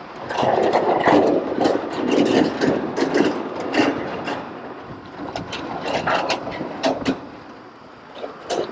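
Gravel bike tyres rolling over a steel grating bridge deck: a rumbling rattle with many sharp clicks, loudest in the first half and easing off near the end as the bike leaves the grating for concrete.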